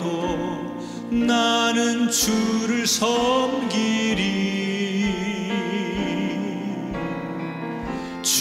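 Worship music: a singer's melody over sustained instrumental accompaniment.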